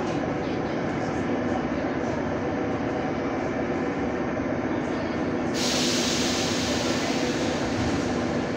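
An 81-71 metro car's traction motors and running gear, heard from inside the car as the train pulls away, a steady rumble with a low hum. About five and a half seconds in, a steady high hiss sets in abruptly on top.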